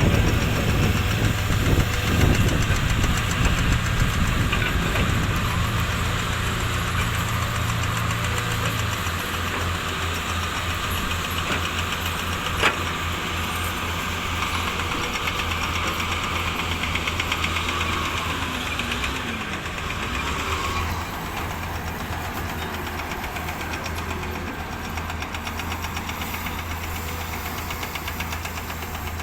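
Diesel engine of a heavy earthmoving machine running steadily under load as it digs. Its low note shifts about nine seconds in, there is a single sharp clank about twelve seconds in, and the engine gets quieter later on.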